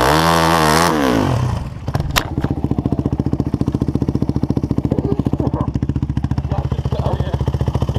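Supermoto motorcycle engine revving up and down, then two sharp knocks about two seconds in as the bike goes down. After that the engine idles with a fast, even pulse.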